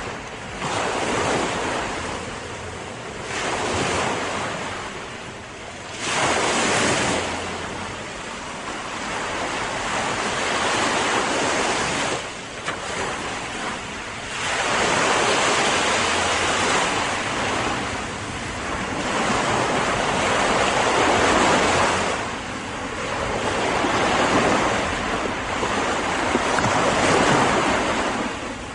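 Ocean surf: waves breaking and washing up the shore, the rush swelling and falling back every three to five seconds.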